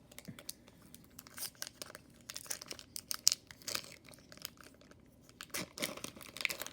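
Pokémon booster pack's foil wrapper being torn open and crinkled by hand: irregular sharp crackles in two spells, a pause around the middle.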